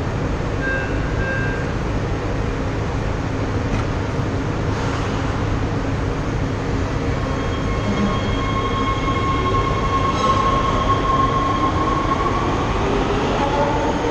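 Heavy-rail subway train at the platform, running with a steady rumble. About a second in, two short chime tones sound, then the doors close. From about halfway on, the train pulls out and its motors whine upward in pitch as it gathers speed.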